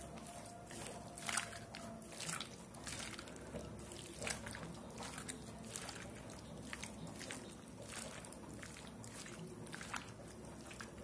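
A hand squeezing and mixing wet, salted bottle gourd pieces with turmeric and nigella seeds in a steel bowl: faint, irregular wet squelches about once a second.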